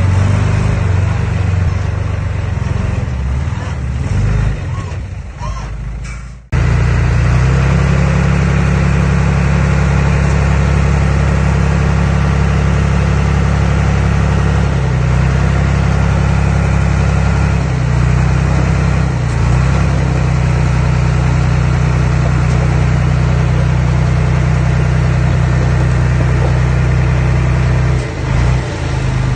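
Diesel engine of earthmoving machinery such as a bulldozer or dump truck running under steady load. About six seconds in the sound cuts off abruptly and resumes as a louder, steadier drone.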